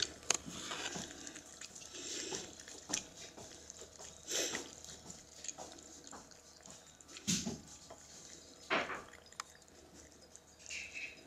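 Two cats eating from dishes: irregular wet licking, smacking and chewing clicks, a few louder smacks about four and a half, seven and nine seconds in.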